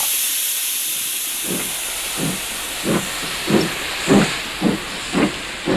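Steam locomotive sound effect pulling away: a steady hiss of steam, then chuffs starting about a second and a half in and gradually quickening.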